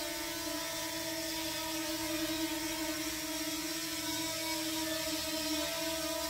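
DJI Mini 2 quadcopter hovering, its four propellers making a steady whine at several pitches that waver slightly.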